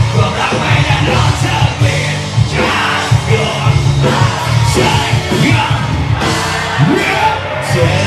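A live rock band playing loud, with a singer, over a crowd of men yelling and singing along.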